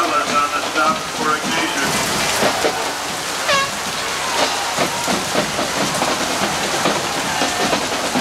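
Steady crackling hubbub of a football crowd in the stands, with voices in the first second and a short high gliding shout or whistle about three and a half seconds in.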